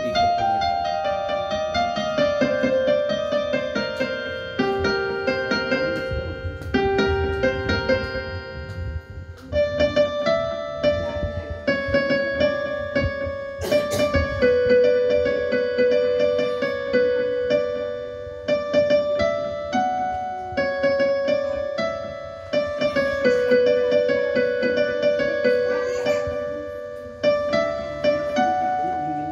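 A melody played on a small electronic keyboard in a piano-like voice, mostly one note at a time with some notes held.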